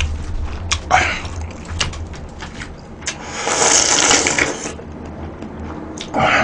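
Slurping noodle-soup broth straight from a lifted bowl: one long, hissy slurp about three seconds in, lasting under two seconds, among smaller mouth and eating noises.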